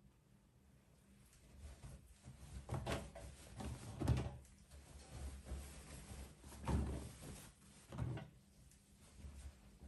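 Towels and kitchen cloths being dropped by hand into the drum of a top-loading washing machine: cloth rustling and a handful of soft thuds, the loudest about four and seven seconds in.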